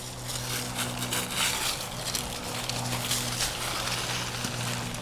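Footsteps and rustling through brush and dry leaves, a run of short crunches over a steady low hum.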